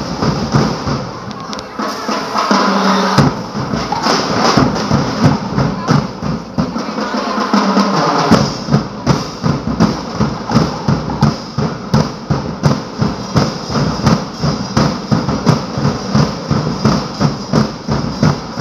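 Loud drum-driven street-dance music with a steady, pounding beat of about two hits a second. Twice the deep drum drops out for a second or two before the beat comes back.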